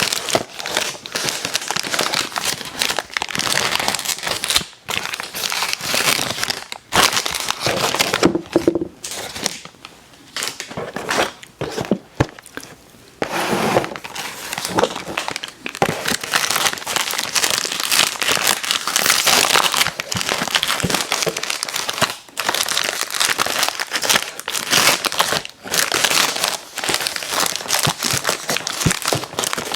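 Close-miked crinkling and crackling of plastic snack wrappers being handled and torn, with a quieter, patchier stretch about a third of the way through.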